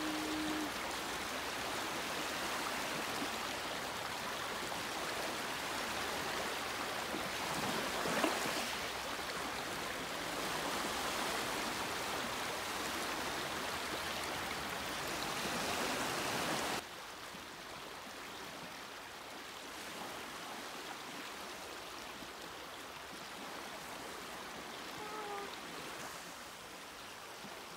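Sea water washing over rocks and a pebble shore, a steady hiss of small waves. About two-thirds of the way through it cuts abruptly to a quieter wash of small waves lapping on the pebbles.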